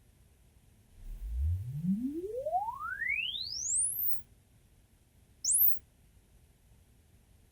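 Room EQ Wizard measurement sweep: a pure sine tone played through the left loudspeaker channel, gliding smoothly upward from deep bass to the top of hearing over about three seconds, loudest at the low end. About a second and a half later comes a brief high rising chirp.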